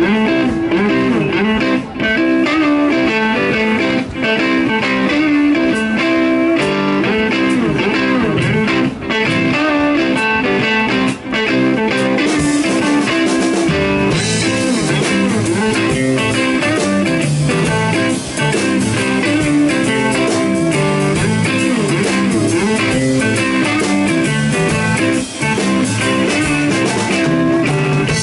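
Blues rock band playing live: an instrumental passage of electric guitar over bass guitar and drums, with no singing.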